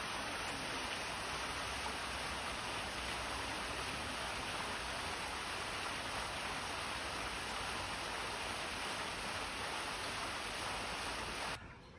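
Tiered fountain with several water jets splashing down into stacked basins and a pool: a steady, even rush of water that cuts off suddenly near the end.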